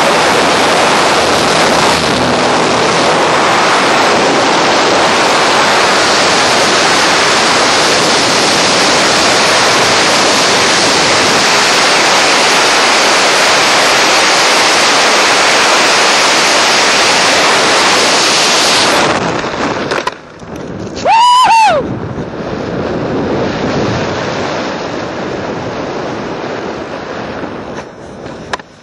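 Loud, steady wind blasting the helmet camera's microphone during a skydiving freefall track. It drops off sharply about two-thirds through to softer wind, and a couple of seconds later a short high tone bends up and back down.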